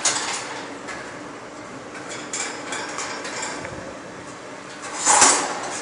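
Hands handling a packing machine's metal panels: light clicks and rubbing, with a louder scrape lasting about half a second about five seconds in.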